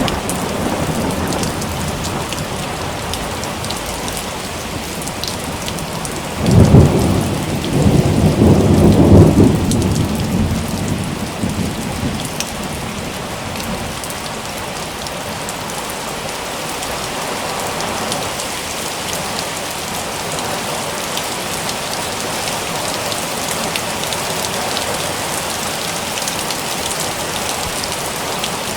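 Steady rain falling with a thunderclap about a quarter of the way through: a sudden loud crack that rolls on as a low rumble for several seconds before fading back under the rain.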